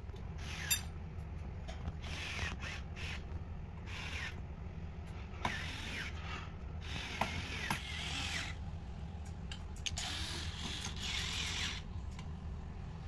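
Cordless electric screwdriver driving screws into a black metal rack frame, whirring in several runs of a second or two with the pitch bending as it works, among a few clicks of metal parts.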